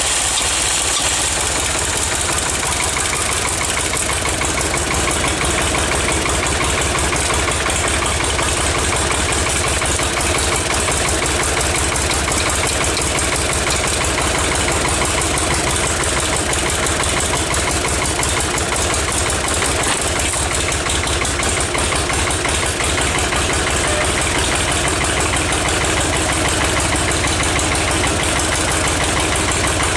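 1966 Ford 4000's three-cylinder diesel engine, mounted on a stand with no tractor around it, running steadily at idle.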